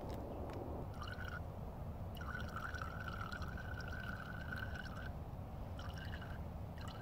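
Filtered water running through a folded parachute-nylon scarf and trickling into a plastic bottle. The thin stream stops and starts several times and makes a steady high note while it runs.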